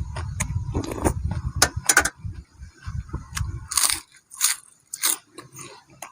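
Close-up crunching and chewing of crisp food in the mouth, a string of sharp crackles. Strong wind buffets the microphone with a low rumble that cuts off about four seconds in.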